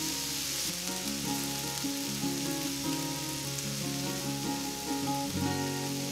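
Soft instrumental background music, its notes changing every half second or so, over a steady high hiss.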